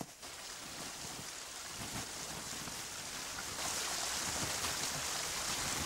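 Small stream running over rocks: a steady rush of water that grows louder about three and a half seconds in.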